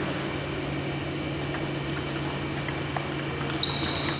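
Table tennis rally: light ball clicks off bats and table about twice a second over a steady low hum. Near the end a high, steady squeal starts and carries on.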